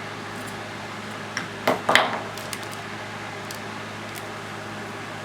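A few sharp metallic clicks and clinks from small hand tools at a soldering bench, the loudest about two seconds in, typical of side cutters snipping component leads. A steady low hum runs underneath.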